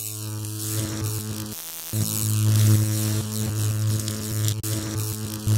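Electric hum and buzz with crackling static, a neon-sign sound effect. It drops out briefly about a second and a half in, then comes back louder.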